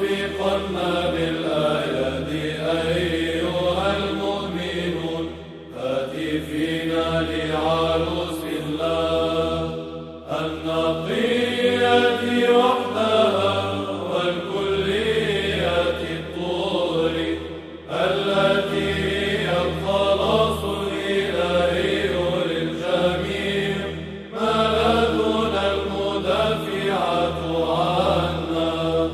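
Byzantine chant sung in Arabic in Tone 4: the melody is chanted in phrases over a steady low held drone (ison), with short breaks between phrases every five to seven seconds.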